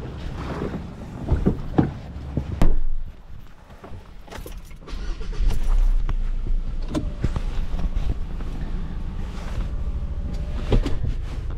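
A few sharp knocks in the first seconds, the loudest a single thud, then a Ford vehicle's engine starting about five seconds in and idling steadily, heard from inside the cabin, with small clicks and rattles.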